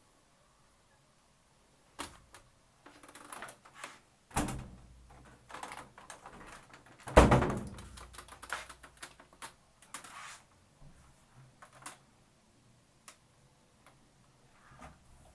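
Plastic clicks and knocks from a top-loading washing machine being handled, with one loud thump about seven seconds in.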